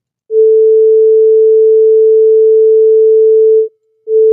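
Pure, steady electronic tone from the PhET Waves Intro sound simulation with its frequency slider at maximum, played through the computer. It starts about a third of a second in, cuts out briefly near the end and comes back at the same pitch.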